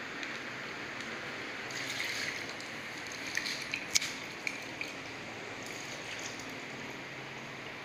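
Steady background hiss with a short rustle about two seconds in, then a handful of sharp clicks and taps around the middle as a plastic packet and bottle are handled.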